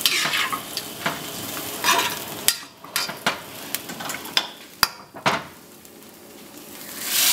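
Chicken, broccoli and onion sizzling in a wok while a metal spatula stirs and tosses them, with sharp clanks of the spatula against the wok. The sizzle dies down about two-thirds of the way through and swells again near the end.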